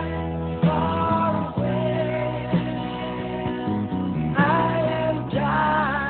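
Background music: a song with a singing voice over guitar and bass, the voice holding a wavering sung line about four seconds in.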